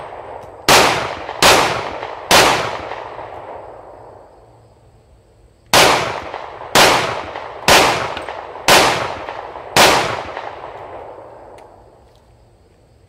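Smith & Wesson SD40 VE .40 S&W pistol firing eight shots: three quick shots about 0.8 s apart, a pause of about three seconds, then five more at roughly one a second. Each report rings out and trails off over a second or more.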